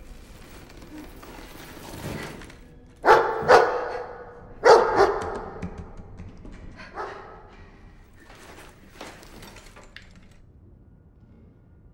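Dog barking: two quick pairs of loud barks, about three and five seconds in, then a single softer bark.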